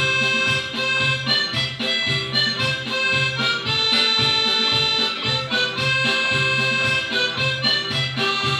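Cavagnolo piano accordion playing a paso doble: a melody of held reedy notes on the right hand over a steady, evenly pulsing bass beat.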